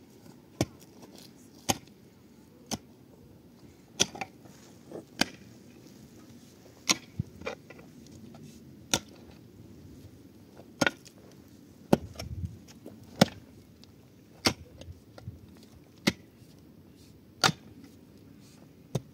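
Sharp strikes repeated about once every second or so, some fifteen in all, over a faint background.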